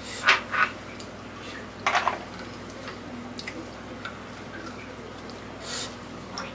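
Eating cooked mud crab close to the microphone: a handful of short crackles and wet smacks as shell pieces are picked apart by hand and the meat is chewed.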